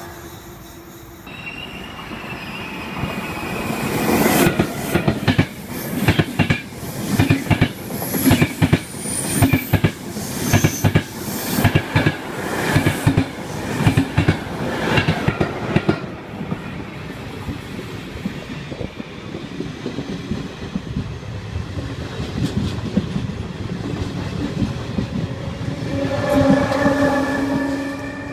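A train rolling past close by, with a quick, regular clatter of wheels over the rail joints. Then a steadier rumble as an electric locomotive-hauled train approaches, with a brief pitched tone near the end.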